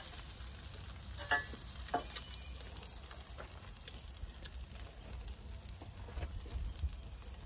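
Eggs frying on a Blackstone Adventure Ready 17-inch griddle, a steady sizzle broken by a few sharp clicks of a metal spatula on the griddle top, the clearest about a second in and again near two seconds. Wind rumbles low on the microphone underneath.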